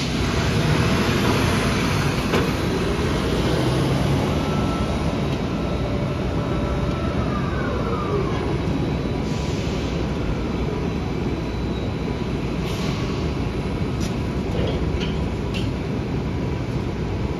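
Container gantry crane machinery running at a port, a steady heavy rumble with a faint steady tone and a short whine that slides down in pitch about halfway through. A few sharp metallic clanks come near the end as the crane's load is handled.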